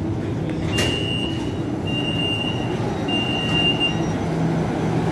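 MRT train doors and platform screen doors opening: a click, then three long, high warning beeps about a second apart, over the steady low rumble of the stopped train in the underground station.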